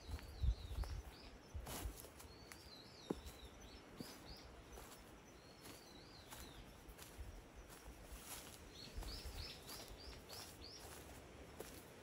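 Songbird singing short warbling phrases every few seconds, with a quicker run of rising notes near the end. Faint, with a few low thumps and light clicks alongside, the strongest in the first two seconds.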